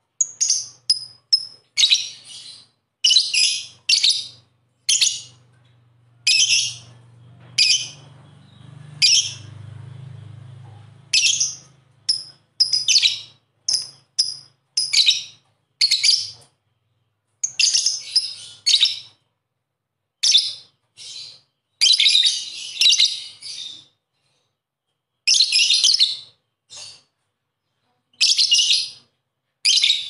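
Lovebird giving loud, shrill, chattering calls in short bursts, one after another with brief gaps and some quicker clusters. A faint low hum lies beneath for about the first dozen seconds.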